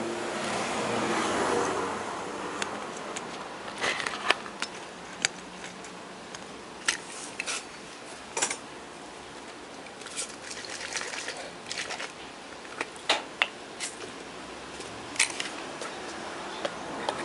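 Scattered light clicks and taps of small parts and tools handled on an electronics workbench, over a steady background hiss, with a brief rustling swell near the start as the circuit board is moved.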